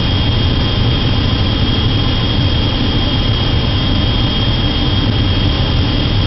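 Furnace burner firing with a loud, steady rushing noise and a thin, steady high tone over it. The flames are blowing back out of the burner onto the wiring and components, which the owner calls a very bad sign and a fire danger.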